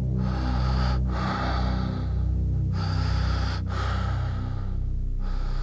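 Ambient soundtrack: a low, steady droning pad with swells of breathy hiss over it. The hiss rises and breaks off about every one to two seconds, four times in all.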